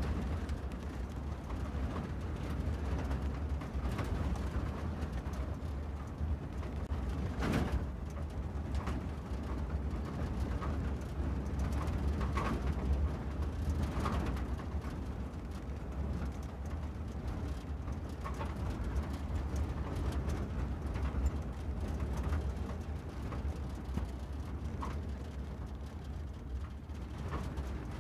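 Car driving along a road: a steady low rumble of engine and tyres, with a few short knocks, the clearest about seven seconds in.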